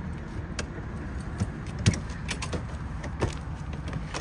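Motorhome side entry door being unlatched and opened: a few sharp clicks and knocks from the latch and door, over a steady low rumble.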